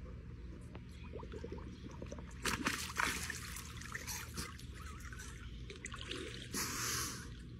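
Pool water splashing and dripping as a golden retriever standing in the water dips its head and picks up a tennis ball in its mouth, with louder splashes about two and a half seconds in and again near seven seconds.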